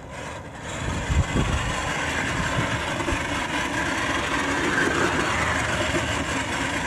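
Redcat Gen 8 radio-controlled crawler truck driving across wet grass, its electric motor and drivetrain running steadily, with a few low thumps about a second in.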